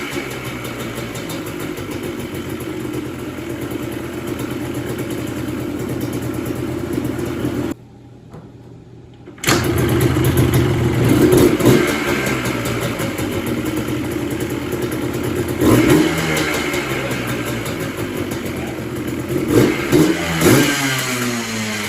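Yamaha Blaster's 195 cc air-cooled two-stroke single-cylinder engine running and being revved, its pitch rising and falling with the throttle. The sound drops away sharply for under two seconds about eight seconds in, then comes back.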